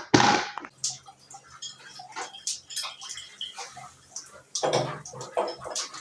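Scattered irregular clicks and knocks of hands and tools working on water heater plumbing fittings, with a short loud rush of noise right at the start and a louder cluster of knocks near the end.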